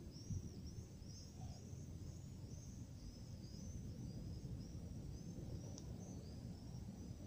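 Small birds chirping continuously in quick, high calls over a low, steady outdoor rumble. A soft thump comes just after the start.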